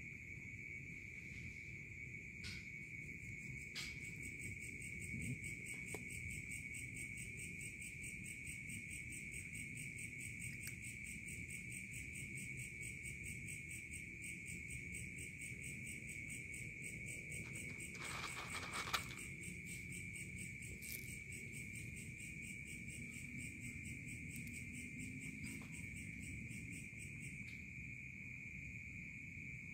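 Night insects such as crickets trilling steadily. One continuous high trill runs throughout, and a second, higher, rapidly pulsing trill joins early and stops near the end. There is a short burst of noise about two-thirds of the way in.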